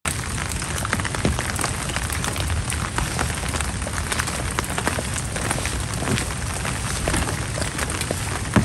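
Rain falling on clear plastic umbrellas: a steady hiss dense with small, quick taps of drops.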